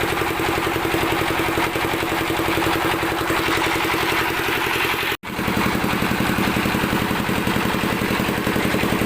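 Engine idling steadily with a fast, even chugging that is loud and noisy, cutting out for an instant about five seconds in.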